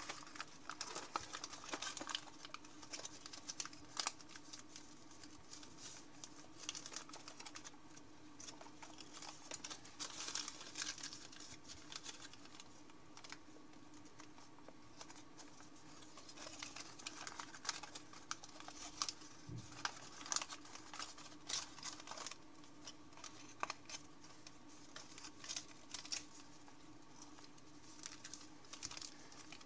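Sheet of origami paper rustling and crinkling as hands fold and crease it, with irregular sharp ticks and clicks in bursts. A faint steady hum runs underneath.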